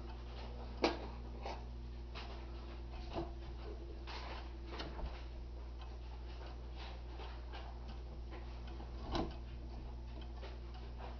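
Ansonia Regulator 'A' long-drop pendulum wall clock ticking steadily over a low hum. A sharper knock comes about a second in and another near the end.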